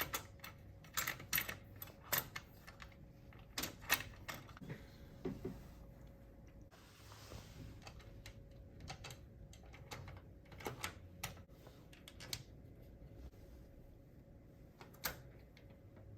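Irregular sharp clicks and clacks, some in quick clusters, of plastic cable connectors and parts being handled and snapped in while the wires are hooked up inside a computer case.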